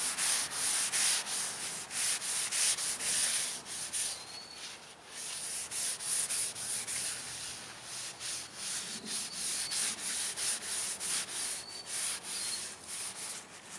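Paper towel rubbed briskly up and down a black walnut knife handle, oiling the wood. It makes a rhythmic rubbing of about three strokes a second, with a brief lull about five seconds in.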